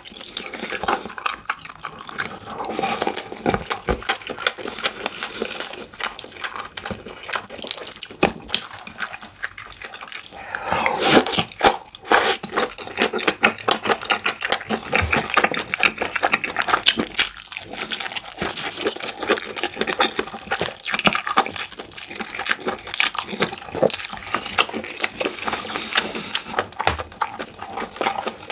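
Close-miked chewing of stir-fried squid and glass noodles: dense wet smacking and sticky clicks in the mouth, with a louder stretch about eleven seconds in.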